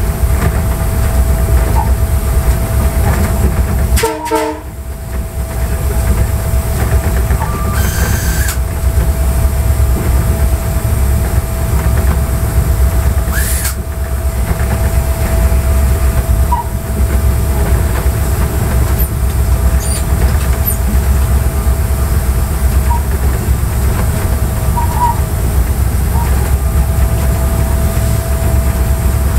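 Cab of an EMD GT36HCW diesel locomotive under way: a steady heavy low rumble from the engine and running gear, with a constant thin whine over it. A few brief clicks and short hisses come through, and there is a knock with a short drop in loudness about four seconds in.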